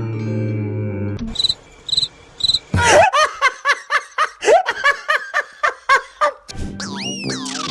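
Cricket chirping sound effect: three short, evenly spaced chirps about a second and a half in. It is followed by about three seconds of rapid, jerky laughter, with music-like tones before and after.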